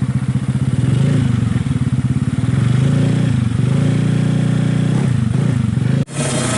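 Bored-up 130cc Suzuki Smash motorcycle engine running loud through a racing exhaust, its revs dipping briefly twice. It cuts off abruptly near the end, and a brighter, harsher engine sound takes over.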